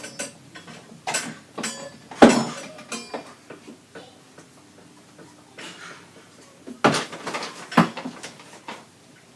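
Several separate knocks and clinks of a spoon and containers being handled, the loudest about two seconds in and another pair near the end.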